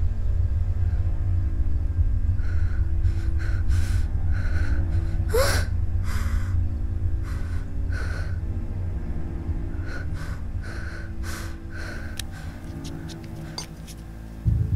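Horror film score: a low rumbling drone with sustained dark tones, over which a woman takes short, frightened gasping breaths. A rising whoosh comes about five seconds in. The drone slowly fades, then slams back in loudly near the end.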